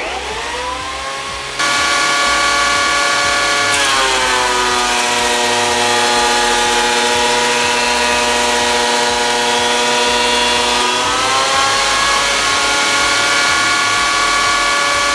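SIP 8" x 8" planer/thicknesser's 1500 W motor and cutter block starting with a rising whine, then thicknessing a square timber. About four seconds in the whine drops in pitch as the cutters take load while the board feeds through. It rises back to full speed near the end as the board leaves the machine.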